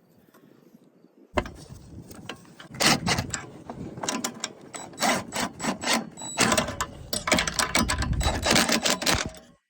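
Irregular clicking and rattling of small parts being handled while fitting a new lawnmower carburetor and its O-ring, starting about a second in.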